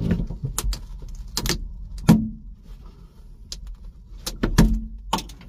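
Plastic trim tool prying out a headliner push-pin clip, with the headliner handled: a string of sharp plastic clicks and knocks, loudest about two seconds in and again about four and a half seconds in.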